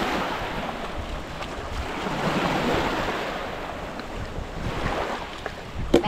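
Small waves washing up on a sandy shore, the noise swelling and ebbing as each comes in, with wind buffeting the microphone.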